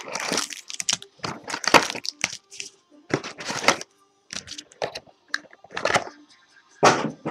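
A hockey trading-card box and its wrapping being torn and crinkled open by hand: a quick, irregular series of crackles and rips, the loudest near the end.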